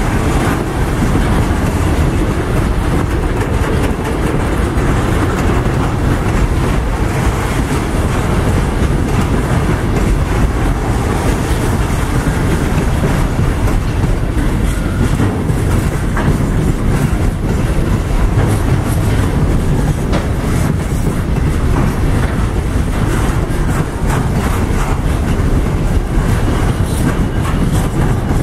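Loaded container freight wagons rolling steadily past on the track, steel wheels clicking over rail joints.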